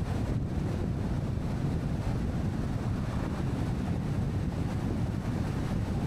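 Steady low rumble of wind and tyre noise from a car driving along a highway.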